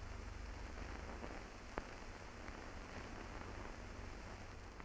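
Surface noise of an old film soundtrack: steady hiss over a low hum, with scattered faint crackles and one sharp click about two seconds in.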